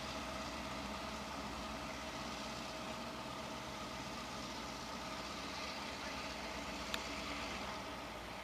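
Several EMD GP38 diesel locomotives running steadily at low power, their two-stroke 16-cylinder engines making an even drone as the units roll slowly forward. A single sharp click sounds near the end.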